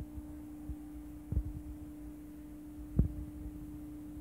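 Stepper motor driving a small conveyor belt, a steady low hum, with a couple of dull knocks, the loudest about three seconds in.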